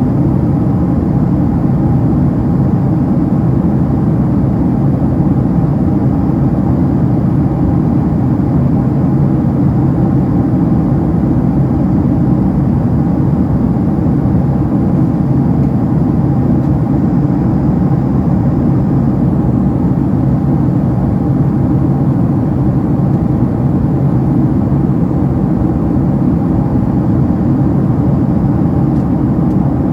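Steady jet-engine and airflow rumble heard inside the cabin of a Boeing 767-300ER, loud and even, heaviest in the low range.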